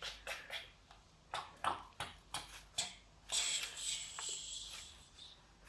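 Light taps and clicks from handling a handmade craft hive of cardboard toilet-paper rolls and a playmais bee, about eight in the first three seconds, then a soft hiss lasting a second or so.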